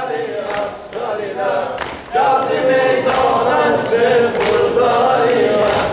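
Men's voices singing a Shia mourning elegy (mersiyye) together, unaccompanied, in a steady chanted rhythm.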